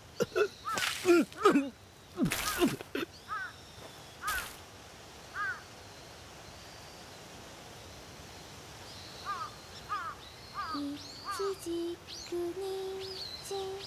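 Crows cawing over and over, loudest and harshest in the first few seconds, then more scattered calls. Near the end a voice starts singing a slow tune in long held notes.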